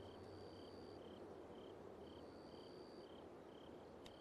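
Faint crickets chirping in an even rhythm, about two chirps a second, as a quiet night ambience. A single soft click sounds just before the end.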